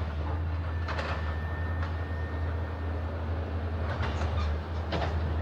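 Excavator digging out a ditch: its diesel engine runs steadily with a low hum, and sharp metal clanks come about a second in, near two seconds, and twice near the end.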